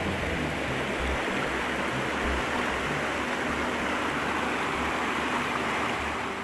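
Creek rapids rushing and splashing over rocks: a loud, steady rush of water that eases slightly near the end.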